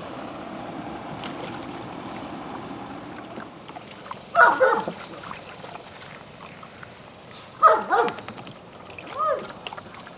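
Labrador puppy yipping three times, at about four and a half, seven and a half and nine seconds in, each call short and falling in pitch, over a steady low hum in the first few seconds.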